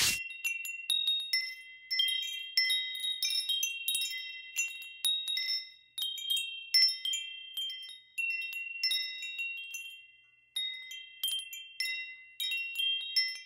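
Chimes tinkling at random: a few high metallic tones struck irregularly, several times a second, each ringing on briefly, with a short lull about ten seconds in.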